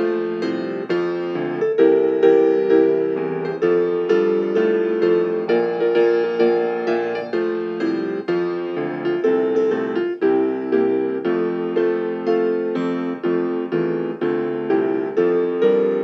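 Piano music: a steady stream of struck notes and chords, each dying away before the next.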